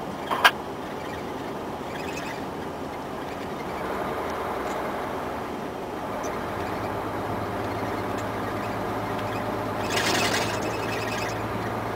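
Cab noise of a Mercedes-Benz Actros 1848 truck on the move: its V6 diesel running with steady engine and road noise, and a low drone settling in about halfway through. A sharp click sounds about half a second in, and there is a brief rush near the end as an oncoming car passes.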